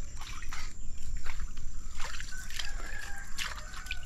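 Muddy water sloshing and splashing in short, irregular bursts at a waterlogged crab burrow.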